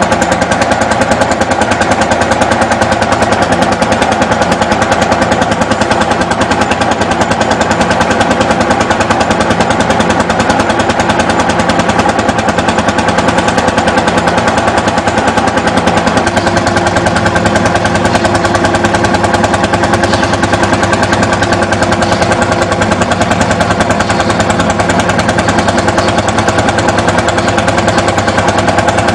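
Lanz Bulldog's single-cylinder two-stroke hot-bulb engine running steadily under load with a loud, rapid, even beat, driving a threshing machine by flat belt from its pulley. A steady hum from the belt-driven thresher lies under the engine beat, and a higher steady tone joins about halfway through.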